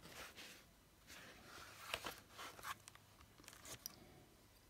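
Faint rustling of paper pages handled on a table, with a few soft taps. It is very quiet throughout.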